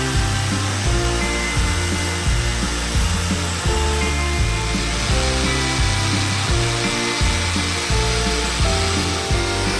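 Background music with a steady beat and a bass line changing about every half second, over a continuous rough hiss.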